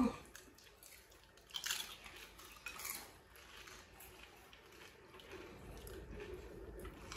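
Pani puri being eaten fast: crisp puris crunched and chewed, with wet sounds as they are dipped in the bowl of pani. Two louder crunches stand out, about a second and a half and three seconds in.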